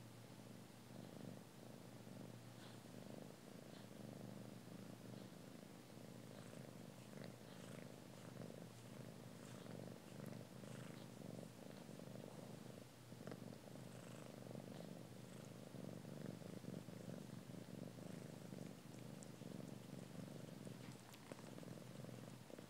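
A mother cat purring steadily while her kittens nurse against her, with faint light clicks over the purr.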